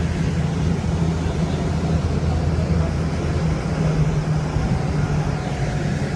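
Seattle Link light rail car running at speed, heard from inside the car: a steady low hum and rumble of the train in motion.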